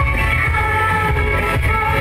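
Loud, steady pop song over the stage sound system, a woman singing live into a handheld microphone over a backing track with a strong bass.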